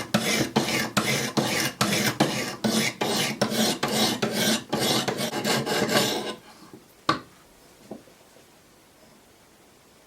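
Diamond sharpening stones on a Wicked Edge guided sharpener rasping along a D2 steel knife blade in quick, even strokes, about three a second. The strokes stop about six seconds in, followed by a single sharp click and a fainter one.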